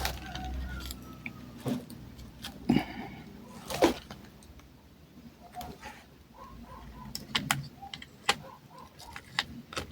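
Small metal nail drill bits and their holder being handled: scattered light clicks and taps as bits are picked up and set down.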